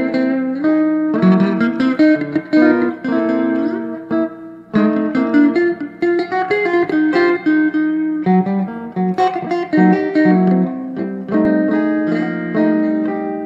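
Two electric guitar rhythm parts on a Fender Telecaster playing together as a duet through an amplifier built around the Telecaster, one part using both pickups and the other the bridge pickup. The picked chords and notes run on in a steady rhythm, with a brief pause about four seconds in.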